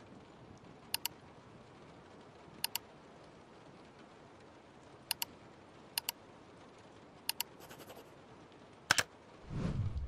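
Press-and-release clicks of computer controls, heard in pairs about five times over a faint hiss, then one louder click near the end. A louder low sound starts just before the end.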